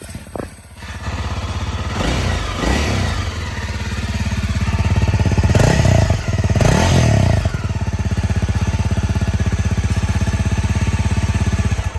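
2017 Honda CRF250L's single-cylinder four-stroke engine idling with an even pulse. It is blipped up in revs twice, about two and a half seconds in and again around six to seven seconds in, and falls back to idle each time.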